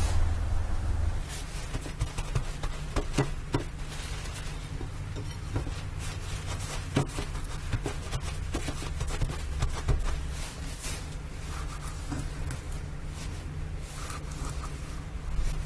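Paper towel rubbing and patting a whole raw sea bream dry on a plate, with scattered small clicks and knocks of handling over a steady low hum. Near the end a kitchen knife scores the fish's skin.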